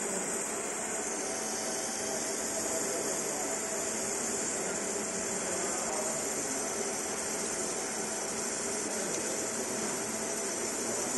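50 W fiber laser marking machine running steadily while it marks a copper plate: an even, high hiss with a faint low hum that does not change.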